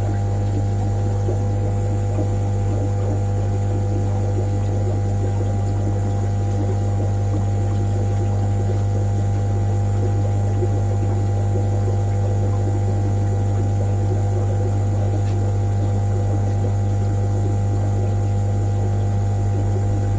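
Steady low hum of fish-room equipment such as aquarium pumps running, unchanging throughout.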